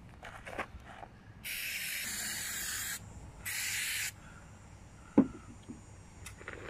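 Aerosol can of paint stripper spraying in two bursts, a long hiss of about a second and a half and then a shorter one, as it coats BMX handlebars. About five seconds in comes a single sharp knock as the can is set down on the wooden board.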